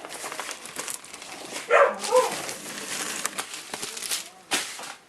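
Packaging crinkling and rustling as a replacement laptop screen is unwrapped. A brief voiced sound comes about two seconds in, and a sharp knock near the end.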